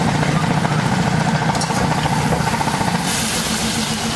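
Metal spatula stirring and scraping egg curry mixture on a large iron tawa over a steady low mechanical hum, with a hiss of sizzling steam growing louder about three seconds in.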